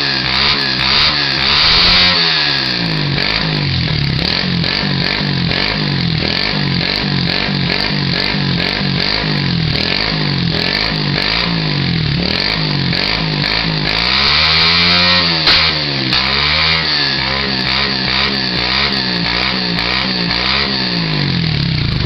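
Honda CG single-cylinder motorcycle engine running through a small Torbal aftermarket exhaust, revved over and over with quick throttle blips about once a second. The exhaust rumbles and pops with backfire shots. A longer, higher rev about two-thirds of the way through ends in a sharp crack.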